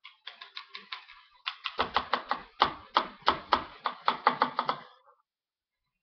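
Paintbrushes knocking against a plastic cup: a quick, even run of hard taps, about six a second, stopping about five seconds in.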